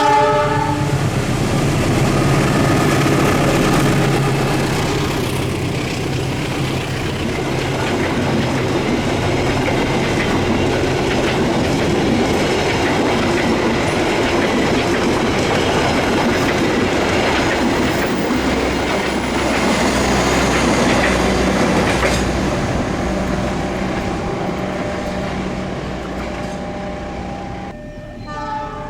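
A train passing close by on the main line, with a steady rumble and wheels clattering over the rail joints that fades slowly in the last few seconds. A train horn sounds briefly at the very start and again just before the end.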